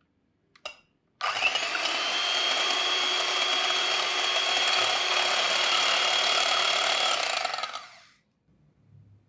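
Electric hand mixer running steadily with a motor whine as its wire beaters whisk egg yolk and whites in a glass bowl, starting about a second in and winding down to a stop near the end.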